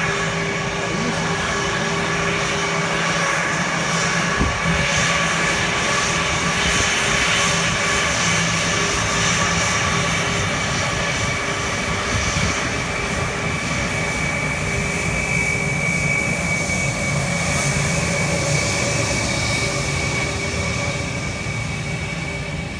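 Twin jet engines of an Airbus A320-family airliner running at taxi power as it rolls past: a steady jet rush with a whistling whine held over it. It fades a little near the end as the aircraft turns away.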